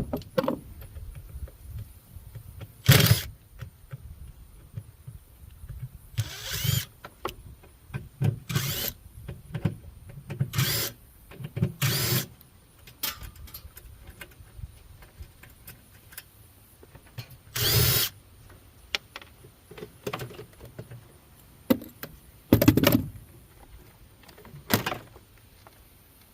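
A power drill or driver run in short bursts, about eight over the stretch, each about half a second long, with lighter clatter between them, as a scrapped refrigerator is taken apart.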